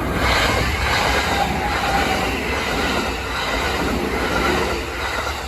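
A train passing at close range: a loud, steady rush of wheels on rail that swells at the start and fades near the end.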